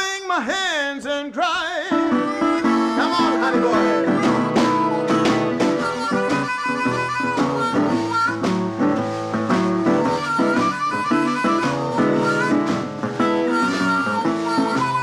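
Live acoustic blues in E: a harmonica plays a solo line over acoustic guitar accompaniment, with wavering, bending notes in the first couple of seconds.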